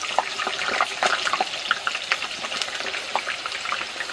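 Potato slices deep-frying in hot oil, a steady sizzle thick with quick pops and crackles as the chips crisp.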